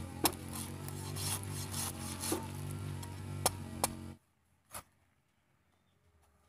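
A large knife scraping the spiky skin of a young tarap fruit: rasping strokes with sharp clicks as the blade knocks, over a steady low hum. About four seconds in the sound drops away suddenly, leaving near quiet and one more short knock.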